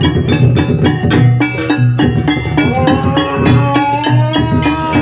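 Live Banyuwangi jaranan gamelan music: wooden-keyed xylophones struck with mallets in a quick, even pattern over a heavy drum beat. A held, gliding melody line comes in about halfway through.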